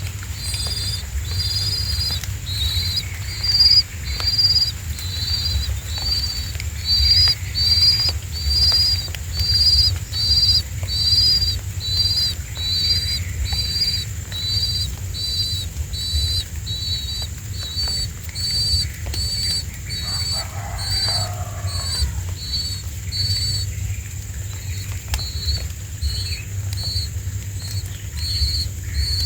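Nestlings begging: short, high chirps repeated about twice a second, on and on.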